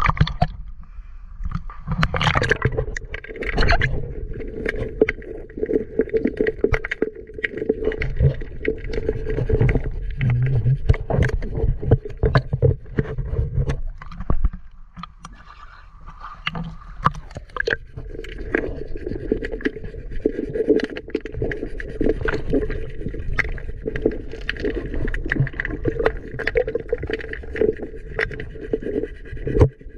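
Water sloshing and gurgling around a camera held at and below the surface of a river, heard muffled as if underwater, with many small scrapes and knocks.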